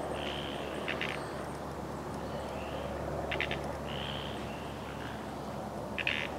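Small birds calling over a steady low background rumble. There are a few short high chirps, and three brief rattling trills: about a second in, near the middle and near the end.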